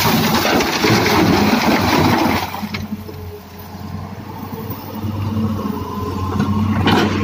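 Hitachi excavator bucket dumping broken rock into a steel truck bed: a loud rattling clatter for the first two and a half seconds or so. After it the excavator's diesel engine runs steadily, with a brief noisy burst near the end.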